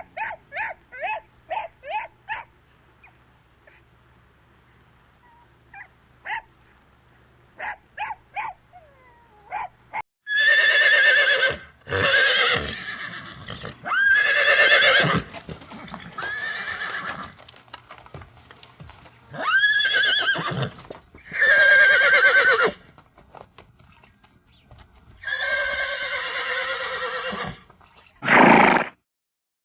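Horse whinnying: about seven loud neighs, each a second or two long with a wavering pitch, from about ten seconds in. Before that comes a run of short, quieter pitched calls.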